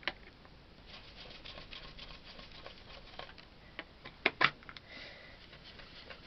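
Soft, rapid scuffing of a round ink blending brush worked over a plastic stencil on card, with two sharp taps about four seconds in as the brush is loaded at the ink pad.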